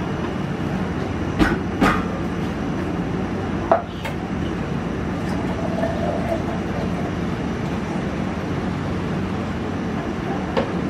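Steady mechanical hum of a café kitchen, with a few sharp knocks of containers and utensils being handled: two close together about one and a half and two seconds in, another near four seconds, and one near the end.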